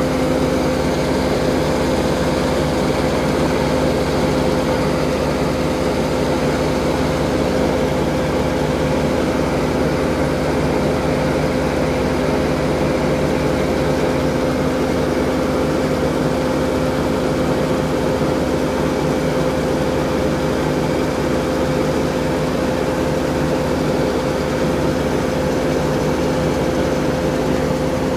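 Grain auger unloading wheat from a hopper-bottom truck trailer: a steady, constant machine drone with a held low hum, along with the rush of grain pouring out through the trailer's bottom gate.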